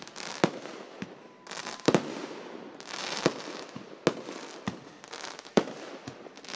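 Aerial fireworks bursting: a string of sharp bangs, roughly one a second, with a hiss between them.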